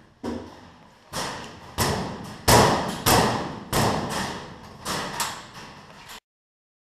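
Metal locker doors being banged and forced open against the zip ties holding them shut: about eight loud metallic bangs at uneven intervals, each ringing briefly, then the sound cuts off abruptly.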